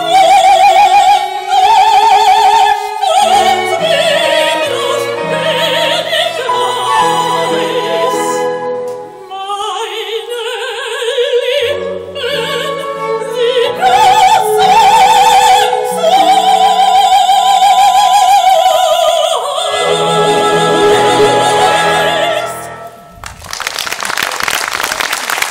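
Operatic soprano singing with wide vibrato over a small string-and-harp ensemble, ending on a long held note. Applause breaks out near the end.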